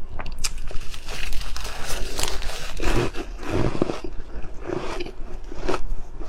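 Ice being bitten and chewed close to the microphone: a run of crunching and grinding, densest in the middle, with a few sharp crunches near the end.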